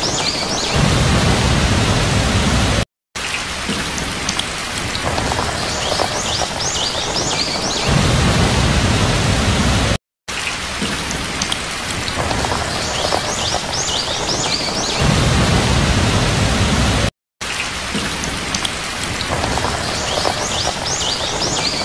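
Heavy rain with low rumbles of thunder, as a loop of about seven seconds that repeats with brief cuts to silence between passes.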